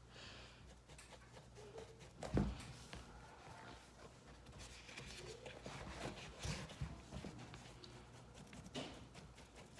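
Quiet handling noise as a small paintbrush dabs and scrubs paint onto a taped football cleat, with a single knock about two and a half seconds in.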